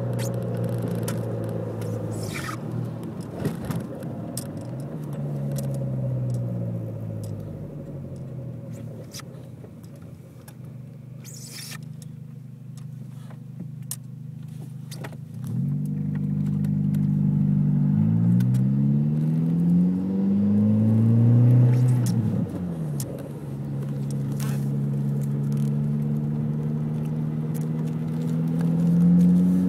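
2003 VW GTI's 1.8-litre turbocharged four-cylinder engine running. It falls quiet and low in the middle, then from about halfway the revs climb in several rising sweeps, each dropping back, and climb again near the end.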